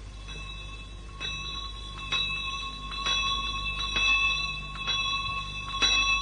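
A bell striking about once a second, each stroke ringing on into the next, the strokes growing louder.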